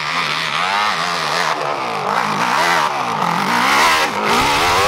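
Dirt bike engine revving hard under full throttle up a steep climb. The pitch rises and falls over and over as the throttle is worked and the rear wheel grips and spins, and it peaks about four seconds in.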